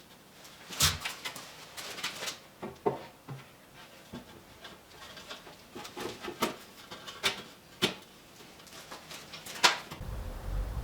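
Scattered sharp knocks and clicks of wood and tools being handled during carpentry work, loudest about a second in and near the end.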